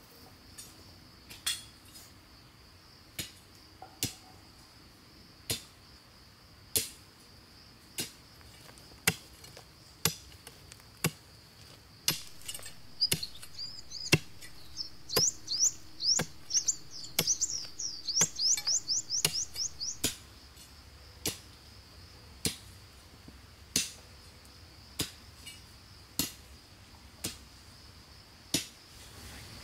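Hand tool striking wood in steady, evenly spaced blows, about one every second. A steady high insect drone runs underneath, and a bird sings a rapid trill of chirps from about 13 to 20 seconds in.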